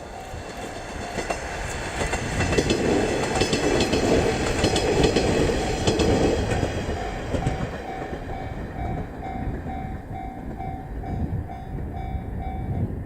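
Three-car JR KiHa 48 diesel railcar train passing close by, its wheels clacking over the rail joints; it is loudest a few seconds in and then eases off as it goes away. A level-crossing warning bell rings about twice a second and stops shortly before the end.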